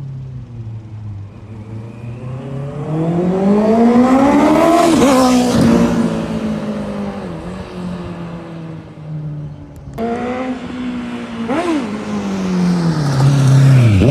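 Honda CB650F's inline-four engine through a custom muffler on a CBR650R exhaust. It pulls up through the revs to a peak about five seconds in, drops back to a steady run, blips once, and revs up again near the end.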